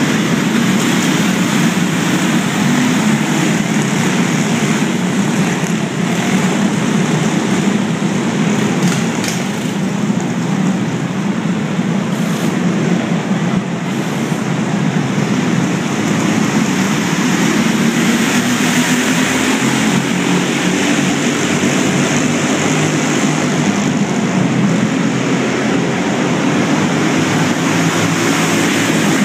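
Several go-kart engines running together on the track, a steady drone with no breaks.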